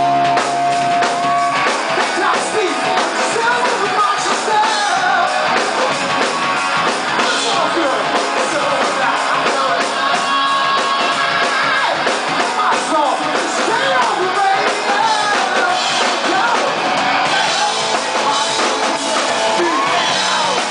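Live rock band playing loud and without a break: electric guitar and drums, with a man singing into a microphone.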